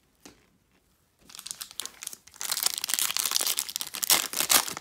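Foil wrapper of a Donruss Optic basketball card pack crinkling as it is handled and torn open. The crinkling starts about a second in and grows loud partway through.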